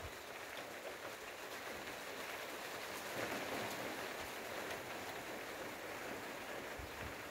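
Steady rain falling on trees and grass, an even hiss that swells slightly about three seconds in.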